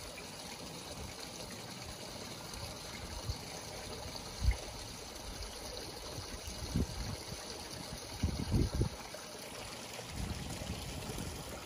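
Steady trickle of water from a garden pond's fountain or waterfall. A few brief low thumps break in, the loudest about four and a half seconds in and a cluster near the end.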